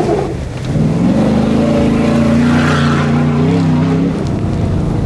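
2011 Ford F-150 SVT Raptor's V8 revving hard as the truck slides past on a gravel road. The engine note climbs about a second in, holds, and eases off near the end, over the crunch and rush of tyres on gravel.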